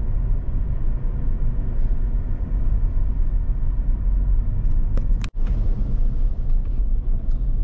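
Steady low rumble of a car driving, heard from inside the cabin. It drops out for an instant about five seconds in, then carries on.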